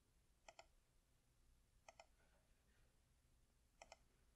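Three faint computer-mouse double-clicks, spaced about a second and a half apart.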